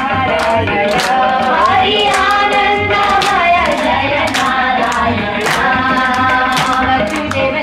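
Music: a sung melody with gliding pitch over a steady low beat, with sharp hand claps now and then.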